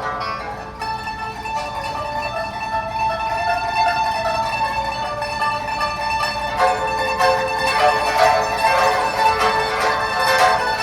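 Pipa playing a traditional Chinese melody. Rapid tremolo strokes at the start and again from about two-thirds of the way through, with held notes that bend slowly in pitch in between.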